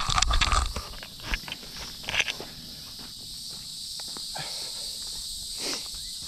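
Footsteps on a dirt and leaf-litter path, with knocks and rustling from the camera being picked up during the first second. Insects buzz steadily in the background.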